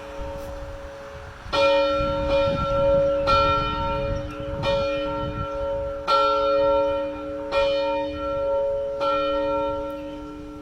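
Single church bell rung in steady strokes, about one every second and a half, six in all. Each stroke rings on under the next, so the bell hums continuously.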